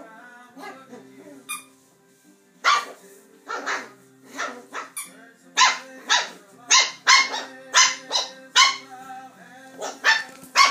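Puppy barking in play with a plush toy: a string of short, high yaps, coming in a quick run of one to two a second in the second half.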